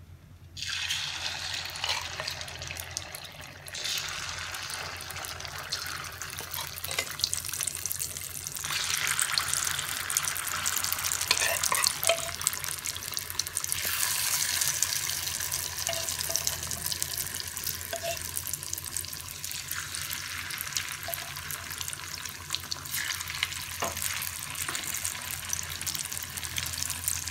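Marinated chicken pieces deep-frying in hot oil in a kadai: a dense, crackling sizzle that starts suddenly about half a second in as the chicken goes into the oil. A spoon stirs the pieces, with a few knocks of the spoon against the pan.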